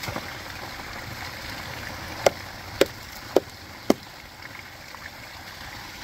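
Water rushing steadily down a partly frozen pond waterfall, with four sharp hammer taps on the ice, about half a second apart, a little after two seconds in.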